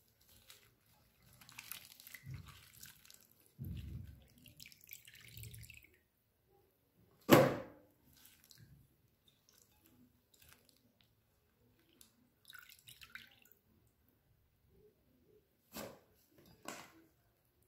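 Water splashing and dripping as wet sliced fennel is lifted by hand out of a glass bowl of water and dropped into a plastic salad spinner basket, with one loud sharp knock about seven seconds in and two lighter knocks near the end.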